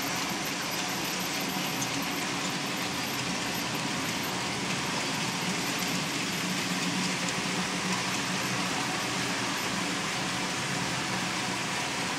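N-scale model trains running on the layout: a steady rumble of small wheels on track.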